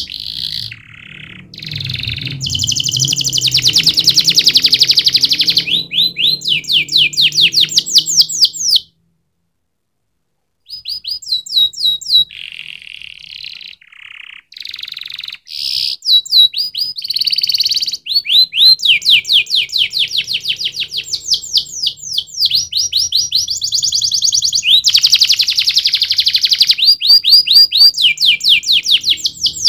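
Domestic canary singing: long fast trills of rapidly repeated high notes, switching from one trill pattern to another every few seconds. The song breaks off into complete silence for about two seconds a third of the way in, then resumes.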